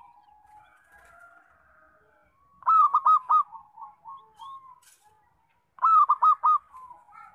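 Zebra dove (local perkutut) singing: two phrases of its staccato cooing song, each a quick run of about four loud notes trailing off into softer ones, the second about three seconds after the first.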